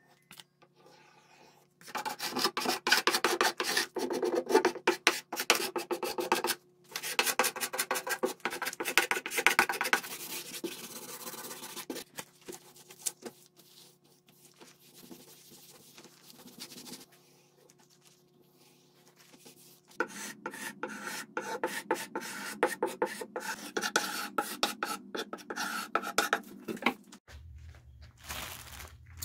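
Metal putty knife scraping softened old finish and chemical stripper off a wooden panel, in runs of quick rasping strokes with short pauses between. In a quieter stretch the wood is rubbed down with a rag.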